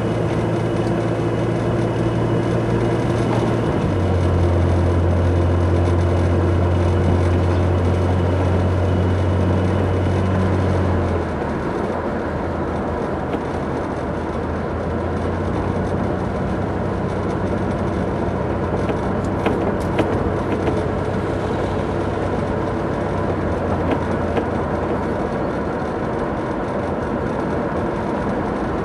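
A car driving on a bumpy road, heard from inside the vehicle: a steady low engine drone over road and tyre noise. The drone drops a little in pitch about four seconds in and eases off around eleven seconds in, with a few brief knocks from bumps around twenty seconds in.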